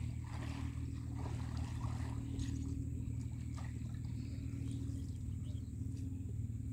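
Steady low hum, with faint splashing and trickling of river water as a cast net is handled and gathered in the water.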